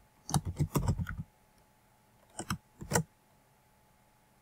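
Typing on a computer keyboard: a quick run of keystrokes in the first second, then a few more about two and a half seconds in.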